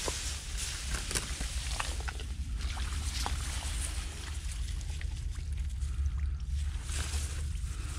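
Rice plants rustling as hands push through them, and feet moving in shallow muddy paddy water, with small scattered clicks and light sloshing over a steady low rumble.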